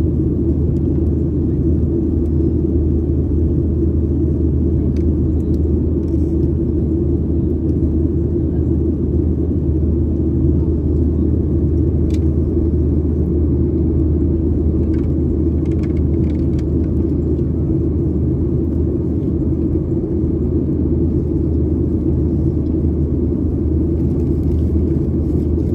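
Steady low rumble of a Boeing 737-800 in flight, its CFM56-7B jet engines and the rushing air heard through the cabin from a window seat by the wing. A few faint clicks sound over it.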